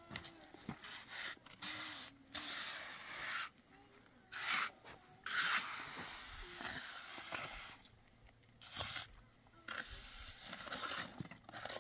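A trowel scraping and smoothing wet cement over a block kerb, in repeated rasping strokes of about a second each with short pauses between.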